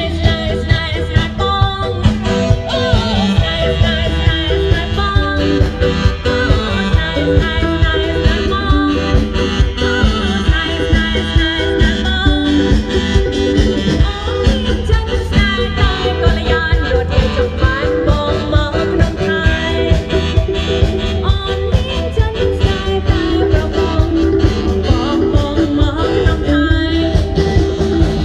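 Music with a steady beat and strong bass, with a singing voice over it.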